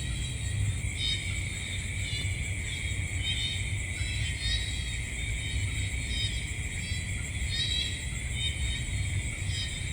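Night ambience of an insect chorus: a steady high buzzing with chirping trills repeating about once a second, over a low rumble.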